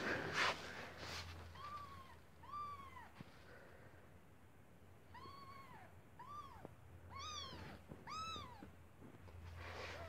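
Newborn kitten mewing: about seven short, high-pitched mews, each rising and falling in pitch, with a brief rustle near the start. The owner takes the constant mewing as a sign that the kitten is hungry.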